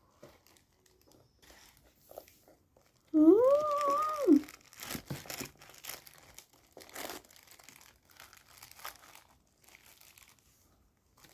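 Eating fried chicken: faint crunching with crinkling and rustling of the wrapping. About three seconds in there is one short hummed "mmm", a voice sound rising then falling.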